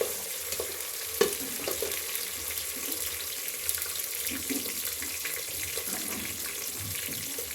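Food frying in hot oil in a pan, a steady sizzle, with a sharp knock at the start and another about a second in.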